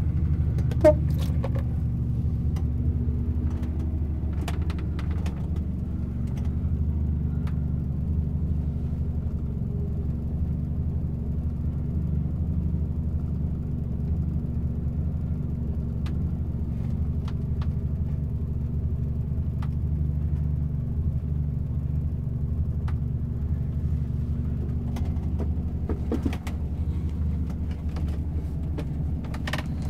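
A steady low mechanical rumble throughout, with scattered light clicks and knocks. There is a short squeak about a second in.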